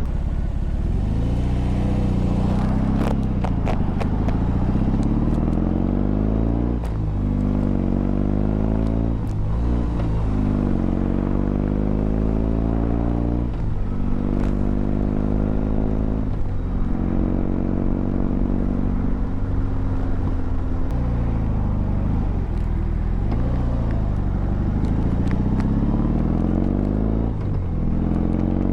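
2021 BMW R18 Classic's big boxer twin pulling through the gears while riding. The engine note climbs in pitch, then drops sharply at each gear change, about eight times.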